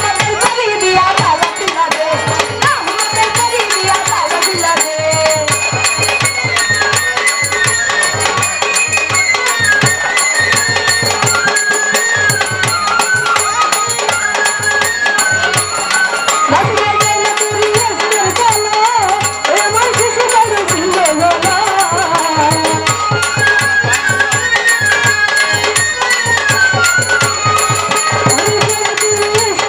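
Live Bengali folk band playing a Baul song: a fast, steady hand-drum beat under a melody line that steps up and down.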